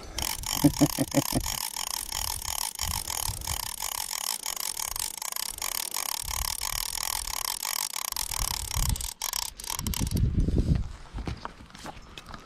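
A fly reel being cranked, its click-and-pawl ratchet clicking rapidly and evenly as line is wound in on a hooked panfish. The clicking stops about three-quarters of the way through and is followed by a brief low rumble of handling noise.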